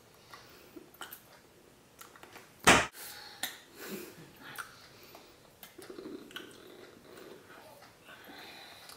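Hands slapping together once, sharply, about three seconds in, amid light clicks of the hands and faint mouth and breath noises.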